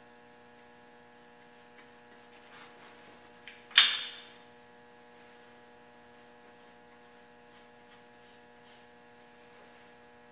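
Steady electrical hum, with one sharp knock about four seconds in and a few faint light handling clicks.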